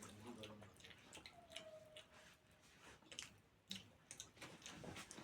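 Faint eating sounds, close to near silence: scattered small clicks and smacks of chewing, with a brief faint hum a little over a second in.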